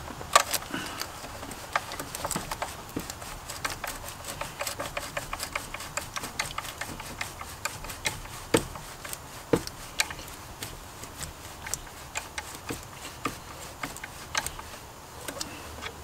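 Irregular small metallic clicks and taps, several a second, of a 10 mm socket and bolts being worked by hand as intake manifold bolts are threaded in, with two louder knocks near the middle.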